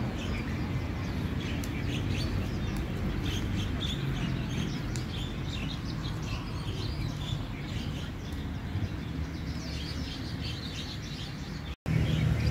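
Small birds chirping, many short calls one after another, over a steady low background rumble. The sound cuts out for an instant near the end.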